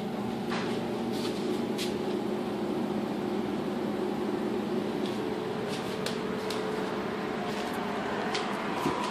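A steady mechanical hum, like a motor or fan running, with a few faint clicks and ticks scattered through it.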